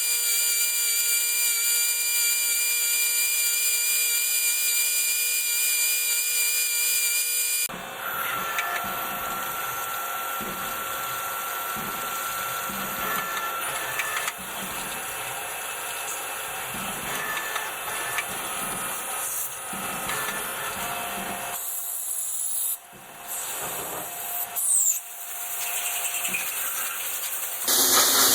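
Power tools machining steel gear rod into small gears: a steady motor whine for the first several seconds, then a different, noisier cutting sound that changes abruptly a few times.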